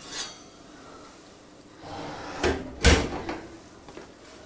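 Gas oven being handled as a baked quiche in a ceramic flan dish is lifted out: a short scrape, then two knocks close together about two and a half seconds in, the second heavier and deeper.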